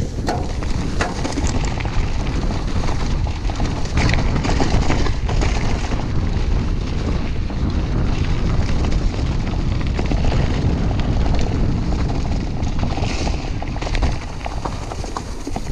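Mountain bike descending a leaf-covered dirt trail, with heavy wind buffeting on the camera microphone, tyre rumble and scattered knocks and rattles from the bike over bumps.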